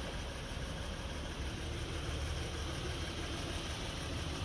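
Acura TL's V6 engine idling steadily.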